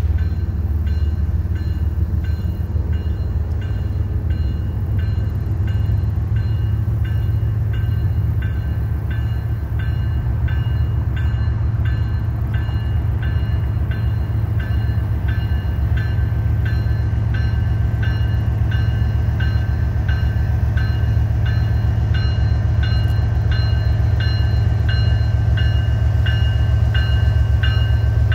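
Two BNSF diesel-electric locomotives running with a deep, steady engine rumble as they approach slowly, growing a little louder near the end. Over it a bell dings steadily about twice a second.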